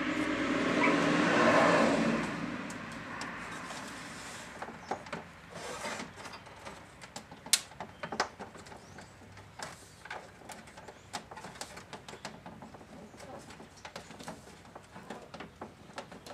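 Cloth rubbing and brushing over the microphone for the first couple of seconds, the loudest part. After that come scattered small clicks and taps of hands handling parts, with one sharper click about seven and a half seconds in.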